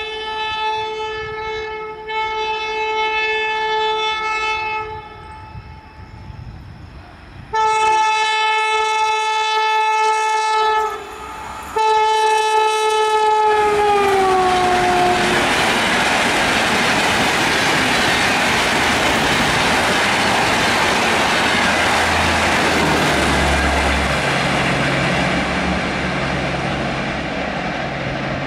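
WAP5 electric locomotive's horn sounding in a series of long blasts as the Kanpur Shatabdi comes through at speed; the last blast drops in pitch as the locomotive goes past. Then comes the loud, steady rush and rail clatter of the Shatabdi coaches speeding by.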